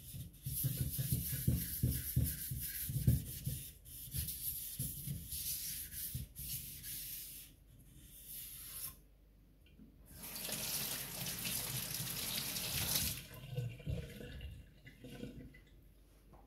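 A flat abrasive pad is scrubbed back and forth across a wet whetstone, a rough rasping with dull knocks, for about seven seconds. Then a tap runs water into a stainless steel sink for about three seconds.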